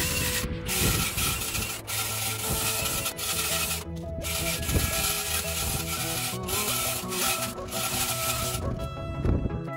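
Wire cup brush spinning on a drill, scrubbing welds on a steel barbecue shell: a dense abrasive hiss that breaks off briefly several times as the brush is lifted, stopping about a second before the end. Background music plays underneath.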